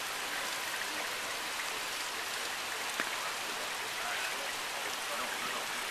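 Heavy rain falling, a steady hiss, with one sharp tick about three seconds in.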